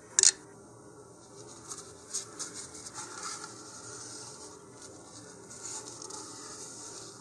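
A tissue dampened with rubbing alcohol rubbed around the shoulder of a model-rocket nose cone by gloved hands: soft, scattered rustling and rubbing. A brief sharp rustle just after the start is the loudest sound.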